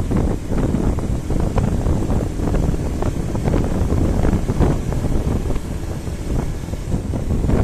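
Wind buffeting the microphone of a motorcycle moving at around 55 km/h, a loud, unsteady rumble with the bike's running and road noise mixed in.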